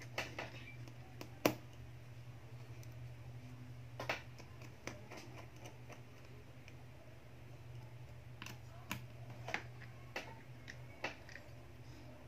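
Scattered sharp plastic clicks and taps from fingers pressing on and handling an opened Vivo Y11 smartphone's frame during reassembly. The loudest click comes about one and a half seconds in, and a steady low hum runs underneath.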